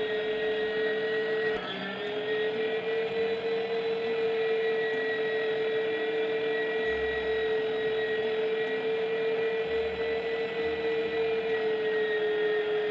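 Electric meat grinder running steadily with a motor whine, mincing tomatoes and peppers into pulp. About a second and a half in, its pitch dips briefly under load and then picks back up.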